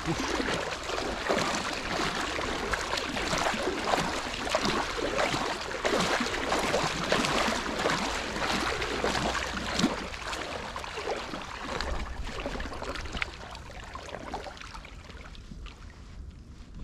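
Water splashing and churning as swim fins kick hard behind an inflatable float tube, driving it along. The splashing eases off about two-thirds of the way through, leaving quieter lapping water.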